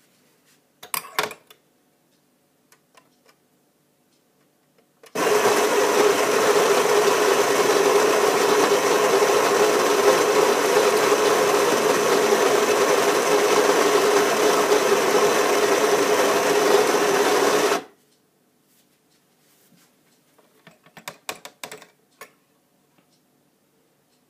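Mahlkönig Vario Home burr grinder grinding a 15 g double-espresso dose into a portafilter: a steady motor whir with a grinding rattle that starts about five seconds in and cuts off sharply some thirteen seconds later. Short clatters and knocks of the portafilter being handled come before and after the grinding.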